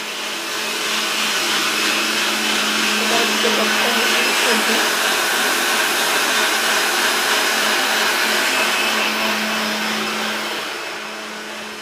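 Electric kitchen mixer grinder running steadily, grinding ginger, garlic and cumin into a wet paste, with a constant motor hum. It builds up in the first couple of seconds and eases off near the end.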